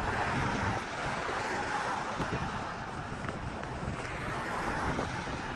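Street ambience: wind buffeting the phone's microphone over a steady hiss of road traffic, swelling a little about a second in and again near the end.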